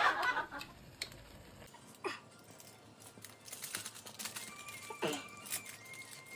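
Faint crinkling and ticking of a small foil-and-plastic Maggi masala sachet being folded and handled in the fingers, with two short falling squeaks about two and five seconds in.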